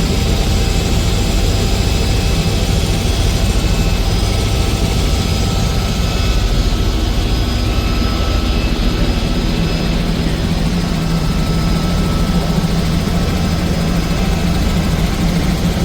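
Helicopter running steadily in flight, with a loud, constant low drone of rotor and engine.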